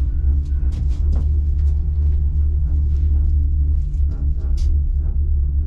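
Steady low rumble inside a moving enclosed gondola cabin, with a faint hum and light clicks scattered throughout.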